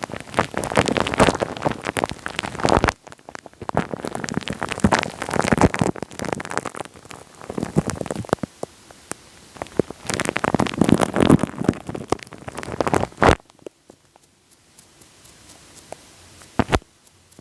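Wet, sticky crackling right on the microphone, a dense patter of tiny pops and clicks as something tacky is worked against it. It comes in spells, loudest in the first three seconds and again from about ten to thirteen seconds, then drops to near quiet with a single faint click.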